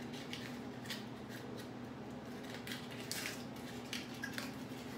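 Paper cupcake liners crinkling and rustling in short bursts as they are peeled apart from a stack by hand.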